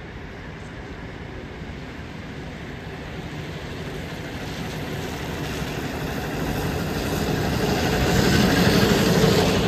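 ZiU-682 trolleybus approaching on a wet street: a steady hiss of tyres and running noise that grows louder, loudest near the end.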